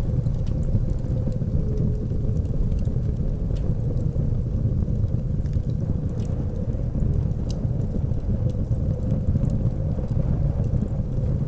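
Blizzard wind as a steady low rumble with a faint wavering whistle through it, and sparse small crackles from a wood fire.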